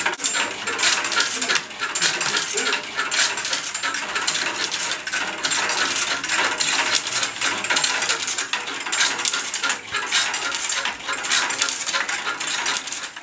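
Kinetic sound installation of styrofoam shapes, wires and small metal parts on a turning styrofoam disc, picked up by microphones: a dense, continuous clatter of small clicks, scrapes and rattles.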